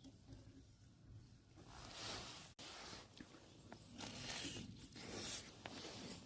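Crisp toasted hot sandwich being torn open and bitten, in several rustling, crunchy bursts with a brief dropout about a third of the way in.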